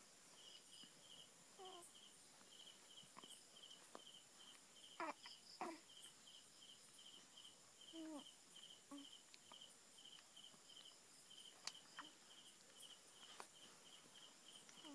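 Near silence: a cricket chirping steadily in evenly spaced short chirps, with a few faint rustles and clicks.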